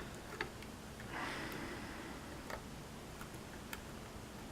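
Faint, scattered ticks of a DeForest diamond pick working the pins of a pin-tumbler lock held under tension, with a soft breath through the nose about a second in.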